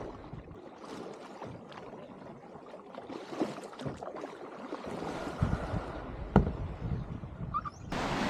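Kayak paddling: irregular small splashes and drips of water from the paddle and the hull. Near the end it gives way abruptly to a steady rush of water.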